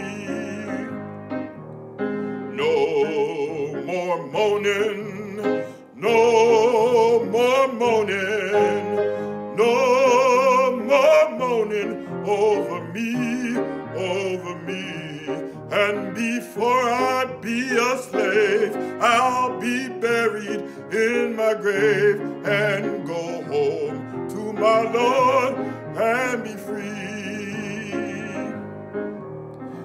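A man singing solo in a trained, full voice, with wide vibrato on long held notes.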